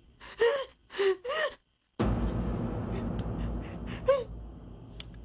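A woman's short, frightened gasps, then about two seconds in a sudden low, rumbling horror-score sting hits and slowly fades, with a few more panicked gasps over it.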